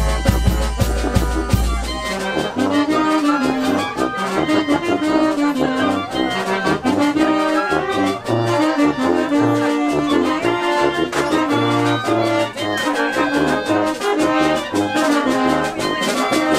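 Wind band playing a piece together: clarinets, saxophone, trombones, trumpets and tuba carry sustained melody lines over a steady beat on timbales and drums.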